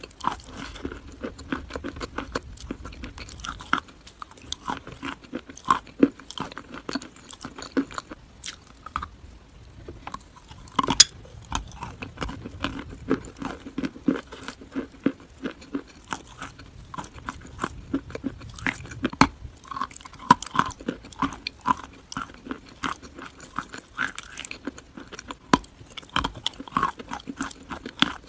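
Close-up biting and chewing of something crunchy: a dense run of sharp crunches and crackles with no pause, the sharpest snap about eleven seconds in.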